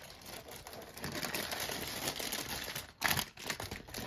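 Thin plastic bag of LEGO pieces crinkling and rustling as it is picked up and handled, with a louder flurry of crinkling about three seconds in.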